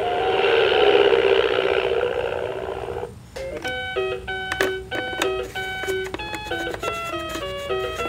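VTech Hammer Fun Learning Truck toy's speaker playing a buzzing, noisy electronic sound effect for about three seconds, then a quick electronic beeping melody of short stepped notes with small clicks between them.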